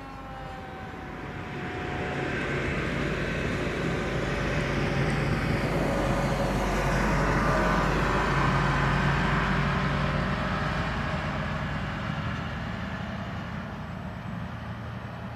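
Electric motor and propeller of a Freewing Moray-clone Depron RC plane flying past: a whining buzz that grows to its loudest about halfway through and then fades away, its pitch dropping slightly as it goes by.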